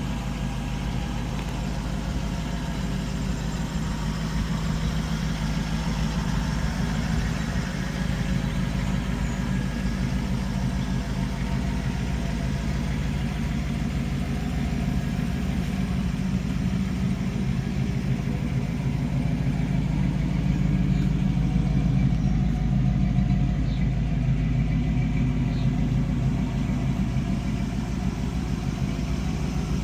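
Hot-rodded 1929 Ford Shay roadster's engine idling steadily, a little louder about two-thirds of the way through.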